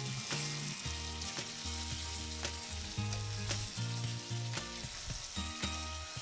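Spiced chicken sizzling in oil in a pan at the end of the kosha stage, the frying meat well braised, while a metal spatula stirs through it with scattered scraping clicks. A soft background music bass line runs underneath.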